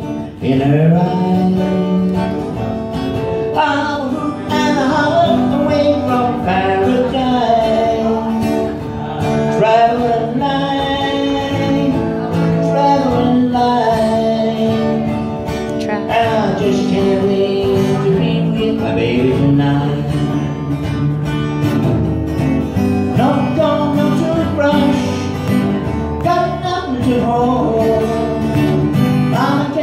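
A man singing while strumming an acoustic guitar, a live song with voice and guitar together throughout.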